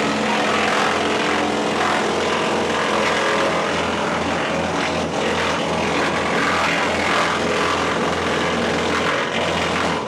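Först ST6P HD wood chipper running under load, its Vanguard 37 hp V-twin petrol engine and flywheel steadily chipping timber drawn in on the slowest feed-roller speed, with chips blowing out of the discharge chute. A few cracks of wood being cut stand out.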